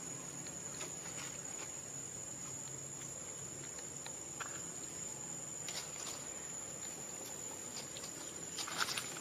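Steady high insect drone held on one unbroken tone, with scattered light clicks and rustles that grow busier near the end.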